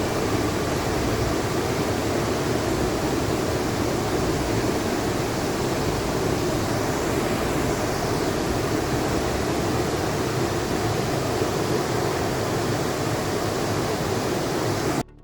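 Steady rush of a mountain brook's flowing water, cutting off suddenly near the end.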